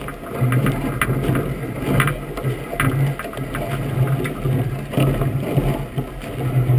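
Iceboat runners rumbling and scraping over the ice as the boat gets moving, with several sharp knocks from the hull and rigging.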